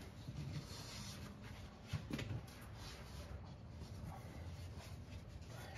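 Faint rubbing and rustling of hand work, with a light click about two seconds in.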